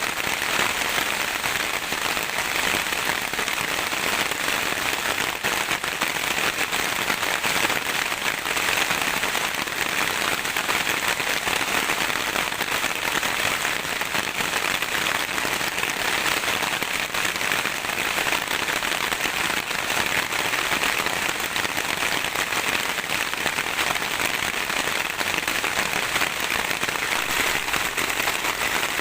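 Steady heavy rain, a dense, even patter of drops with a fine crackle, unchanging throughout.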